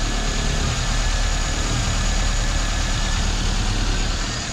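1996 Toyota Corolla's 1.8 L 7A-FE four-cylinder engine idling steadily with a light misfire on one cylinder (code P0301).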